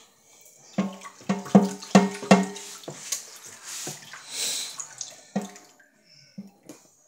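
A hairbrush is knocked against a stainless steel sink about five times in quick succession, each knock ringing briefly, with a few more knocks later. Water splashes at the sink in between as the brush is washed.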